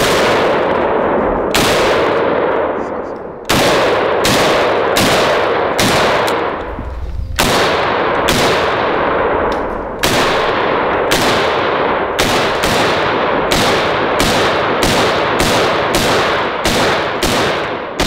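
PTR 91 A3S roller-delayed rifle in 7.62x51/.308 firing in semi-automatic strings. A few spaced shots come first, then a steady rapid string of about two to three shots a second through the second half, each shot with a ringing echo.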